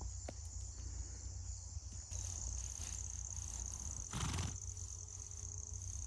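Crickets chirring steadily at a high pitch over a low rumble of wind, with one short rough blowing sound about four seconds in.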